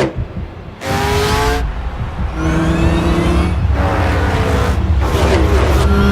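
Race car engines revving and passing by several times in quick succession, their pitch climbing as they accelerate, over a steady low rumble.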